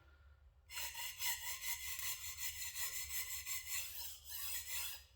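A Shigeki Tanaka 180mm gyuto knife blade being stroked back and forth on a sharpening stone in a steady run of rasping strokes, starting under a second in and stopping just before the end. The strokes work the heel of the blade to raise a burr there.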